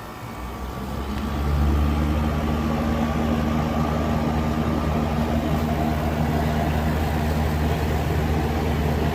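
PTAC air conditioner's compressor starting up about a second in, then running with a steady low hum. It sits on a thick rubber pad tucked beneath it as a temporary fix for the loud noise at compressor start, which the owner puts down to worn compressor grommets.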